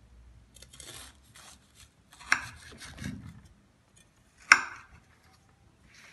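Kitchen knife cutting down through the crisp baked kunafa crust, a dry crunching rasp in short strokes. Two sharp clicks come as the blade meets the serving plate, the second one the loudest.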